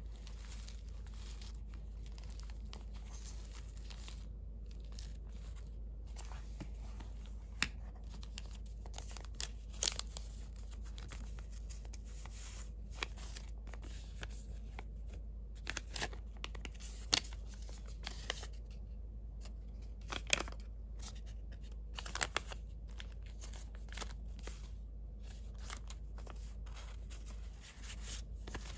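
Paper craft pieces and a plastic pocket being handled: soft paper rustling and crinkling, with scattered sharp taps and clicks, over a steady low hum.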